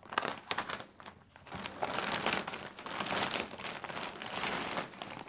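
Clear plastic bag crinkling and rustling as it is slit with a knife and pulled open off a tower server, with a short lull about a second in.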